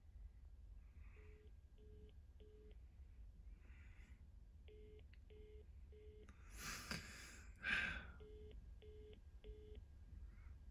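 Faint electronic beeping: sets of three short, even beeps, the set repeating about every three and a half seconds. A brief rustling noise comes about seven to eight seconds in.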